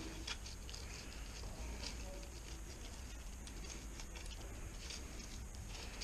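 Faint scattered light ticks and taps of hands handling small gearbox parts and paper on a workbench, over a low steady hum.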